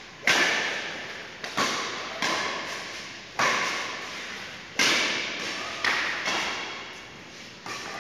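Badminton rally: sharp racket-on-shuttlecock hits about once a second, each echoing on in a large hall with corrugated metal walls.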